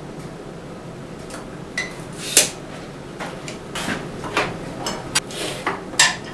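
Workshop handling noises: a scattered run of light knocks, clacks and short scrapes as tools and wood are picked up and set down, with the two sharpest knocks about two and a half seconds in and near the end.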